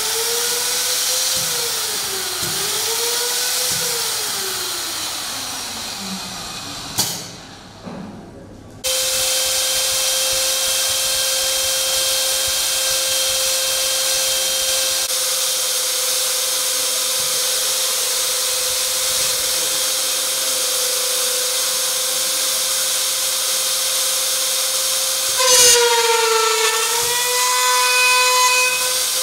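Electric router motor on a uPVC copy routing machine whining, its pitch wavering and falling away over the first several seconds, with a click about seven seconds in. It starts again about nine seconds in and runs at a steady pitch, dipping briefly near the end as the bit loads up cutting into the uPVC profile.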